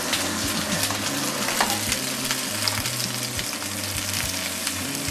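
Sliced red and green peppers sizzling and crackling in hot vegetable oil in a frying pan over high heat, roasting until their skins blister. A few sharp clicks come from metal tongs turning them in the pan.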